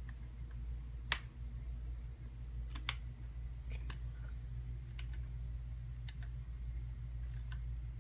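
Scattered sharp clicks, one every second or so, the sharpest about a second in, over the steady low hum of a running desktop PC.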